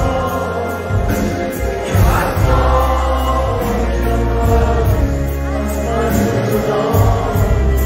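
Live Persian pop played by a band with a male singer, a heavy bass under the melody, heard from among the audience in a large hall.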